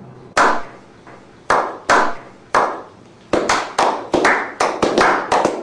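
A slow clap from a small group of people: single hand claps about a second apart at first, quickening to about four or five claps a second over the last two seconds, each clap with a short echo.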